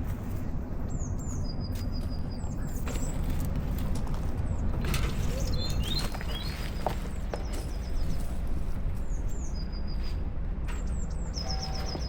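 Small songbirds chirping, with short quick trills of several notes repeated every few seconds, over a steady low rumble and a few soft rustles and taps.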